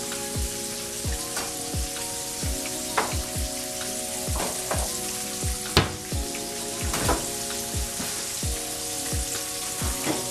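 Oil sizzling steadily as fish fries in a skillet, with a few sharp clinks of utensils. Background music with a regular bass beat plays underneath.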